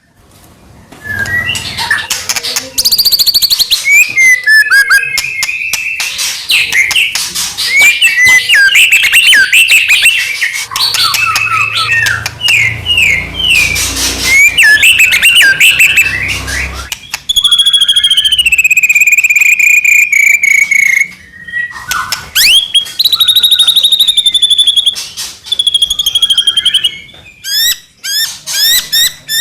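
White-rumped shama (murai batu) singing loudly and almost without pause: a varied run of clear whistles, fast trills and rapid chattering notes, with a long falling whistled phrase about two-thirds of the way through.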